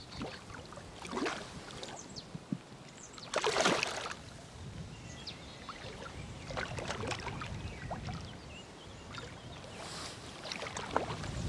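Hooked carp splashing at the water's surface in several short bursts, the loudest about three and a half seconds in.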